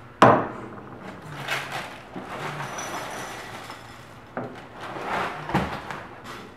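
A glass bowl set down on the countertop with a sharp knock, then Froot Loops cereal pouring from its box and rattling into the bowl for a few seconds, with a few lighter knocks of bowl and box near the end.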